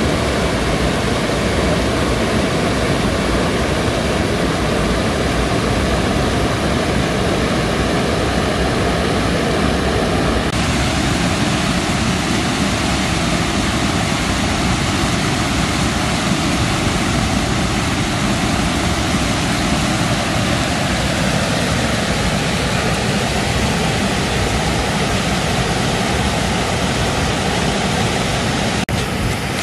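River water pouring over a breach in an earthen bank as a small waterfall: a loud, steady rush of falling water.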